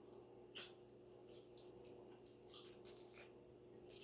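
Faint crackling and clicking of a cooked shrimp's shell being peeled apart by hand, with one sharper click about half a second in, over a low steady hum.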